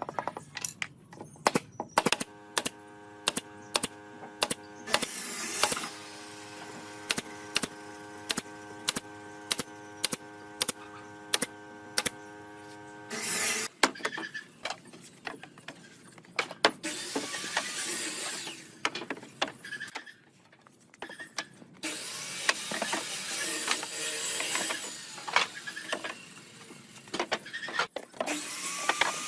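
Woodworking sounds: a run of sharp knocks on wood, about two a second, over a steady hum, then rasping tool work with a few scattered knocks in the second half.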